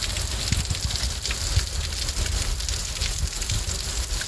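Steady rain falling, with a dense patter of individual drops and a low rumble underneath.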